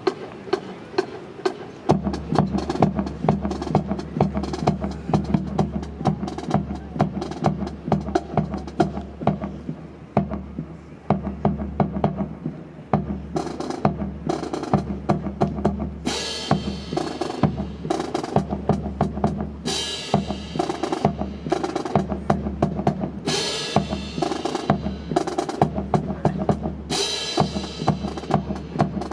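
Drum-heavy backing music for a military rifle drill, with a steady bass beat coming in about two seconds in, over many sharp clicks and slaps of rifles being handled. In the second half, bright crashes come every few seconds.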